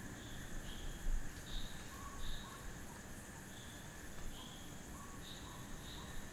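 Night chorus after rain: insects trilling steadily while frogs give short chirping calls, often in pairs, every second or so. A brief low thump about a second in.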